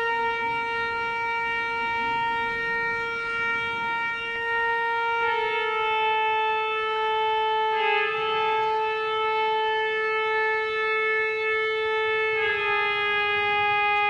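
Pipe organ playing a slow line of long held notes, each lasting several seconds, stepping mostly downward in pitch.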